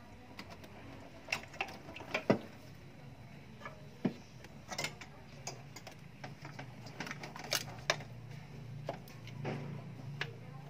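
Irregular clicks and light knocks of hands working among the wiring connectors and hoses of a Toyota 1TR-FE petrol engine, the sharpest knock about two seconds in.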